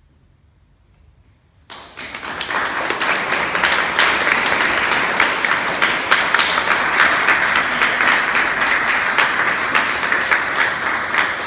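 Audience applauding, breaking out suddenly about two seconds in after a quiet start and holding steady.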